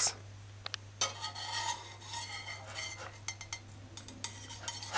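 Metal slotted spatula scraping and clicking against a stainless steel frying pan as it works its way under a cooking pancake. The scraping starts about a second in and comes in short, uneven strokes.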